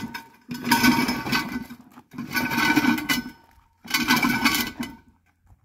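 Bare car frame rolled in four heaves across gravel, each push a burst of crunching gravel and rattling metal about a second long.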